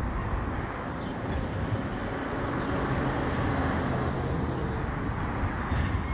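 Automated side-loader garbage truck running while its hydraulic arm lifts a wheelie bin and tips it into the hopper: a steady low rumble, with a faint engine tone rising under load through the middle.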